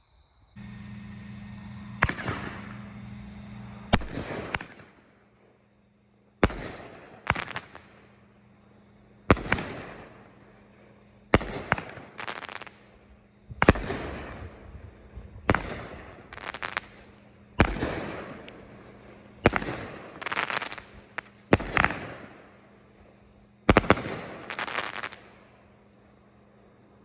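A 12-shot, 200-gram consumer firework cake firing its shots one after another, a loud report about every two seconds, each followed by a spell of crackling from the breaks.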